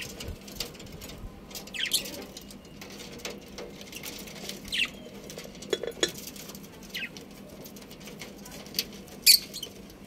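Budgerigars chirping: short, sharp, high calls every two seconds or so, the loudest near the end, with a couple of lower calls about halfway and faint clicking between them.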